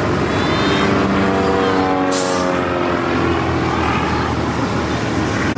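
Skybolt aerobatic biplane's piston engine and propeller running hard through a smoke-trailing aerobatic manoeuvre, the pitch sliding as the plane changes direction and power. A short hiss about two seconds in.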